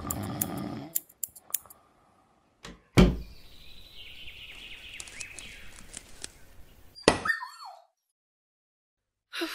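A door slamming shut with one sharp, loud bang about three seconds in, followed by a faint hiss with a high whine and a few light ticks, then a short sound with wavering pitch about seven seconds in and another near the end.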